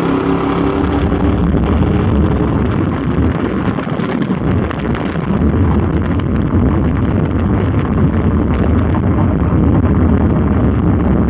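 Trucks at speed, heard from a moving vehicle: an engine note under a heavy, steady rumble of wind and road noise. The engine's pitched drone fades under the rumble about two seconds in.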